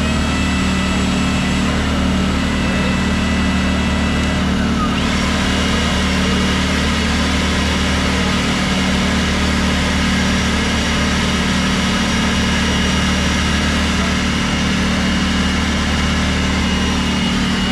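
A steady engine drone with a faint high whine over it, unchanging throughout.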